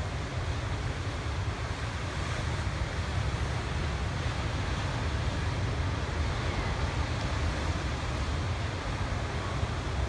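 Ocean surf breaking and washing over rocks, a steady wash of noise, with wind rumbling on the microphone.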